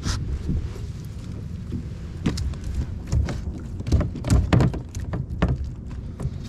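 Irregular knocks and clicks of gear being handled on a plastic kayak, bunched in the middle and near the end, over a steady low rumble.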